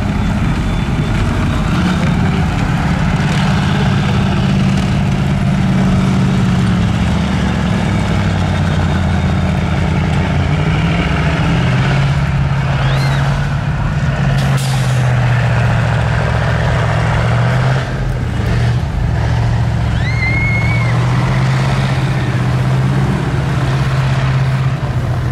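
Engine of a tracked military vehicle running steadily under load as it drives off-road through mud. Its note drops a little about halfway through and then holds. A few short high squeaks sound near the middle.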